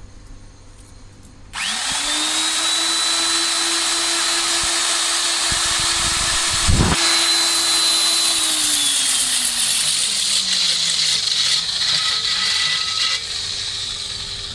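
Kong Sung KSCD-PW14 electric concrete core drill switching on: its motor rises quickly to a steady, high whine, with a single knock about seven seconds in. After about eight seconds the motor's pitch sags steadily lower, and the sound eases off near the end.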